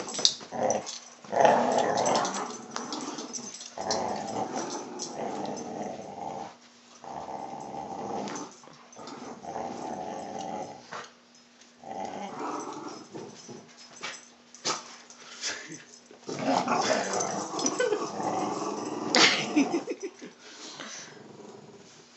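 Dogs growling in play during a tug of war, in repeated rough growls of one to two seconds with short breaks, loudest near the end. Sharp clicks come in between.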